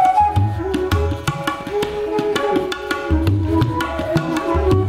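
Background music with quick hand-drum strokes over deep, pulsing bass drum tones and a held melodic line.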